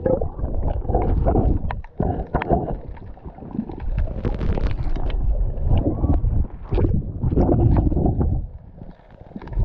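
Water heard through a submerged GoPro Hero 8's housing as it hangs on a fishing line under the surface: muffled, surging sloshing and rumbling, with a few dull knocks as the swinging camera bumps about.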